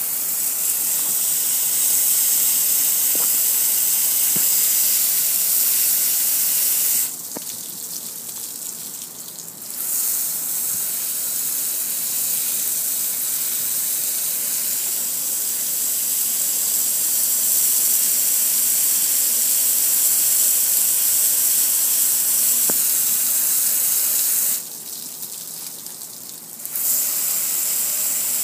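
Steady hiss of a jet of water spraying onto and splashing off a metal gas grill. The spray eases off twice, about seven seconds in for about three seconds and again near the end for about two seconds, then comes back at full strength.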